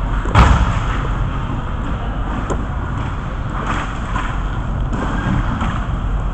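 Inline hockey game heard from the goal: a steady low rumble of play and rink noise, with one sharp loud crack about half a second in and a few softer knocks later.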